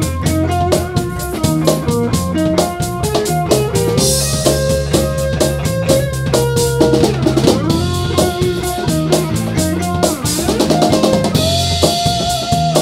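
Live rock band playing an instrumental passage: drum kit with snare and bass drum keeping a steady beat under an electric bass line, with an electric guitar lead whose notes bend and waver in vibrato. Cymbals crash about four seconds in and again near the end.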